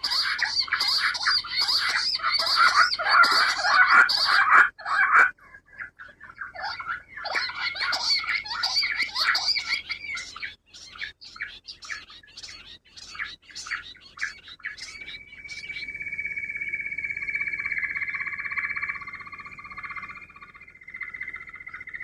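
Quail calling: a dense, rapid chatter of calls for the first few seconds, then a run of repeated notes and sparser short chirps. From about two-thirds in, a steady high tone holds.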